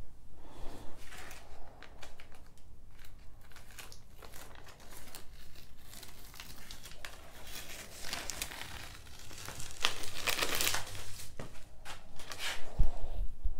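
Yellow masking tape being peeled off the edges of a terrain board and crinkled up: irregular rustling tears and crackles, busiest about two-thirds of the way through, with a low knock or two near the end.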